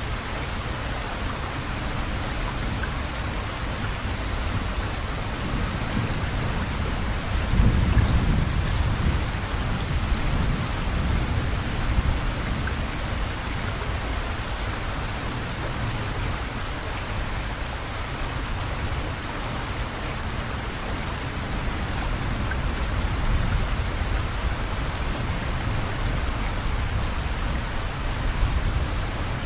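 Steady rain falling, an even hiss of drops. A deep rumble swells about seven seconds in and fades over a few seconds.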